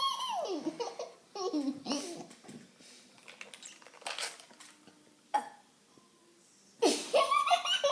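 A baby laughing and babbling in short bursts, with a young child's vocal sounds between, dropping almost to quiet about five seconds in before a louder burst of voice near the end.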